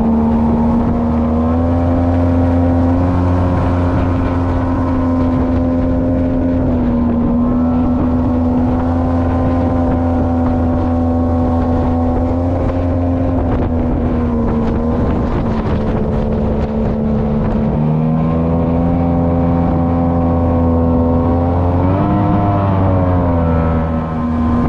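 Boat's outboard motor running steadily underway, with wind on the microphone. The engine pitch shifts slightly a few times and briefly rises and falls about 22 seconds in.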